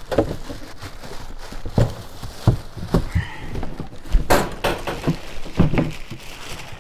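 Plastic-wrapped grass box being lifted out of a cardboard shipping box: crinkling plastic sheeting with several irregular knocks and thuds against the cardboard, the loudest about four seconds in.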